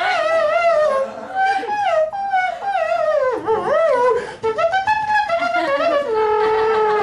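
A high, wordless melody with a sliding, wavering pitch, ending on two held notes, the second lower than the first.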